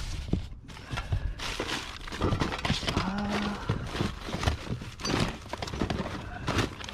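Hard objects knocking and clattering irregularly as items in a pile are handled and shifted, with a brief pitched squeak about three seconds in.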